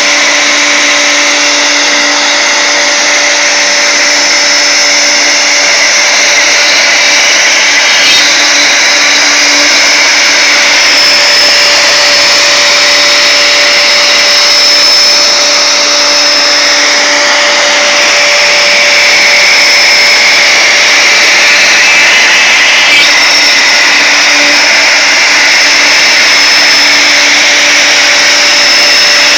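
CNC router spindle running steadily at speed while a small ball-nose bit carves a finishing pass into wood: a constant motor whine and hum under the hiss of the cut.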